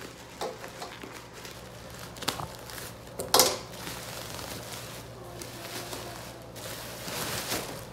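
Clear plastic wrapping rustling and crinkling as a new cloth travel bag is handled and pulled out of it, with a sharp, louder crackle about three and a half seconds in and a denser rustle near the end.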